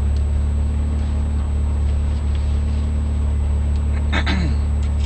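Mitsubishi Lancer Evolution IX rally car's turbocharged four-cylinder engine idling steadily, heard from inside the cabin, with a brief voice about four seconds in.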